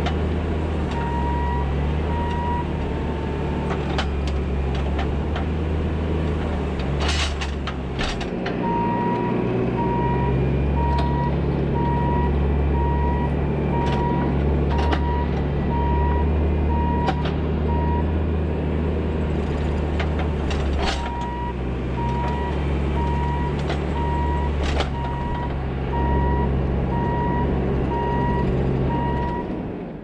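Bobcat T650 compact track loader's diesel engine running steadily while grading, with its backup alarm beeping about once a second during three stretches of reversing. A few sharp knocks are heard along the way.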